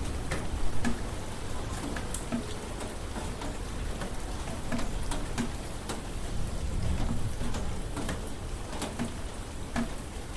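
Steady rain falling on a hard surface, with many sharp, separate drop clicks over an even hiss and a low rumble underneath.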